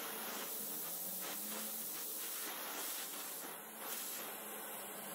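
Gas torch flame hissing steadily as it heats steel parts red-hot for brazing with a filler rod.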